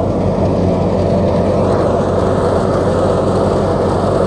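Tractor-powered wheat thresher running steadily under load: the tractor's diesel engine and the thresher's spinning drum and blower make one loud, even drone with a low hum.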